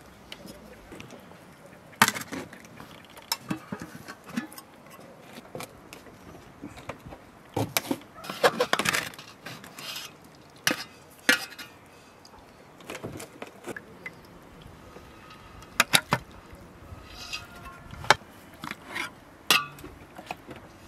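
Metal serving fork and spoon clinking and scraping against an aluminium pot and a metal serving tray as pieces of cooked lamb neck are lifted out. Scattered sharp clinks, with a busier run of scraping and clinking about eight seconds in.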